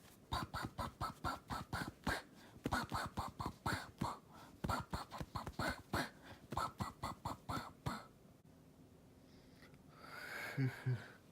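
Quick runs of light taps or knocks, about four or five a second, imitating typewriter typing; the tapping stops about eight seconds in.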